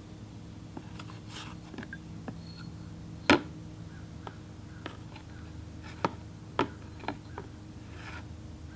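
A few sharp knocks and clicks of hard objects being handled, the loudest about a third of the way in and three more close together near the end, over a steady low hum.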